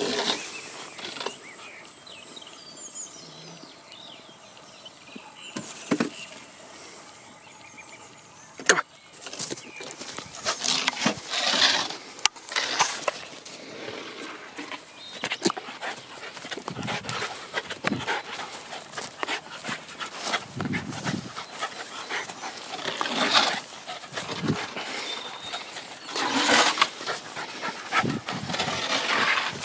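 A dog playing with a stick on grass: irregular rustling and scuffling, a few sharp clicks, and dog noises.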